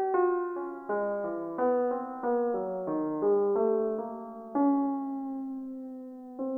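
Piano-like keyboard music: a slow run of struck notes and chords, each fading away, with a longer held chord about four and a half seconds in.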